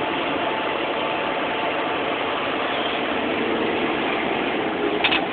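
Steady drone of a semi truck's engine and tyre noise heard from inside its cab while driving on a wet highway, with a brief clatter near the end.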